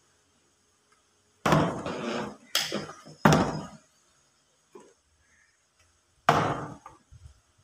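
Partly water-filled plastic bottle flipped and landing on a tabletop, knocking and tumbling. There are hard knocks about one and a half, two and a half and three seconds in, a faint one near five seconds, and another about six seconds in, followed by small rattling bounces.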